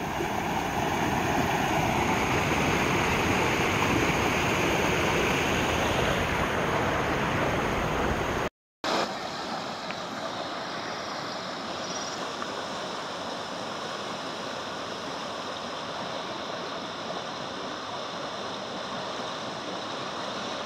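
Muddy floodwater rushing and churning over a concrete edge, loud and steady. After a short break of silence about eight and a half seconds in, a swollen stream rushes through the arches of a culvert, steady but quieter.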